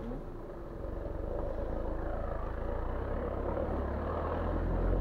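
Car engine running steadily as the car is driven slowly up a rough hill track, a low rumble that grows a little louder near the end.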